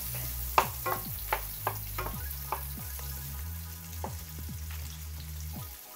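Onions and garlic sizzling in hot pork fat in a frying pan. A wooden spoon stirs them, knocking and scraping against the pan several times in the first couple of seconds and once more near the end.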